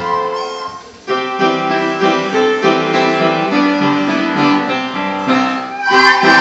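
A group of children playing soprano recorders together: a melody of held notes that breaks off briefly just before a second in, then carries on.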